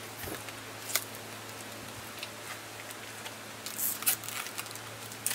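A few light clicks and rustles from a metal spring snap link being handled, with a small cluster of them near the end, over a steady low hum.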